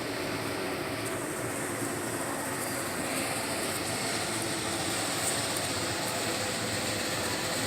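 Steady, even background noise of a large store, with no distinct events.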